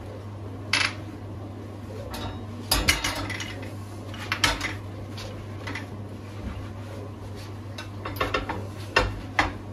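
Metal gas-stove grates clinking and knocking against the sink while they are scrubbed with a soapy sponge: short sharp clatters in small bunches, about a second in, around three seconds, and several more near the end.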